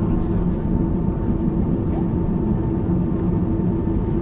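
Steady cabin drone inside an Airbus A330-200 on the ground after landing: an even low rumble with two steady humming tones, one low and one higher.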